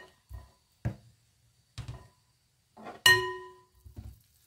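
A metal potato masher knocking a few times against a glass mixing bowl of cooked cassava. The loudest knock comes about three seconds in and leaves the glass ringing briefly.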